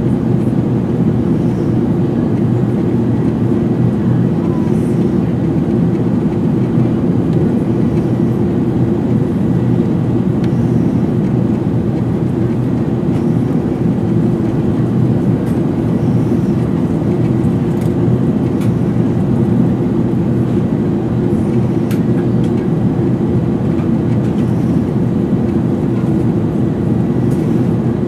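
Steady low cabin drone of an Airbus A380 in flight, the rush of airflow over the fuselage mixed with its Rolls-Royce Trent 900 engines. A few faint clicks come through it.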